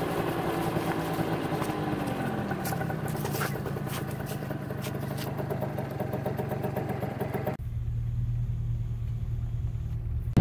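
Vehicle engine running, its pitch falling between two and three seconds in, with a few sharp clicks. About three-quarters of the way through, the sound changes abruptly to a steady, lower engine hum.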